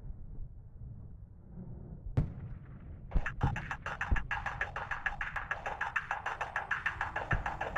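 Background music: a low, dull opening, a single hit about two seconds in, then a fast, even rhythmic pulse starting about three seconds in.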